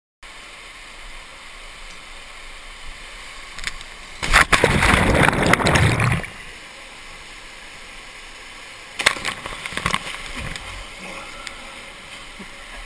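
Mountain stream water rushing over rocks, heard close to the surface, with a loud churning rush of whitewater about four seconds in that lasts some two seconds. A few short sharp splashes follow around nine seconds in.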